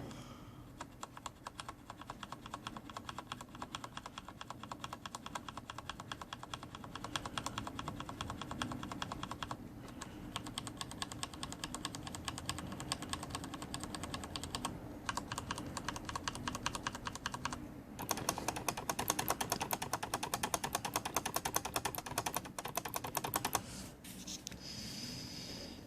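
Fast continuous typing on a SteelSeries 6Gv2 mechanical keyboard with Cherry MX Red switches, linear switches with no click, so each keystroke is the clack of the key bottoming out and springing back. The typing pauses briefly twice, gets busier about two thirds of the way through, and stops shortly before the end.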